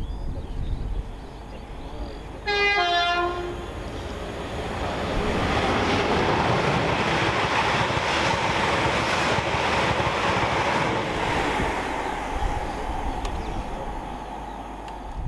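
A passenger train sounds a short two-tone horn about two and a half seconds in, a higher note then a lower one. It then passes at speed with a long rush of wheel and air noise that swells and fades away.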